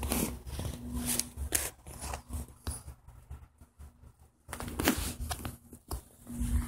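Irregular rustling, scraping and clicking handling noise from a handheld camera being moved and brushed about, over a low rumble, with a louder bunch of scrapes around five seconds in and a faint steady hum coming and going.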